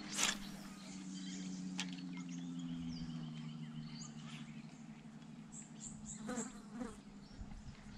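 A fly buzzing close by in a steady, slightly wavering drone that fades near the end, with a sharp click just after the start and a few faint bird chirps.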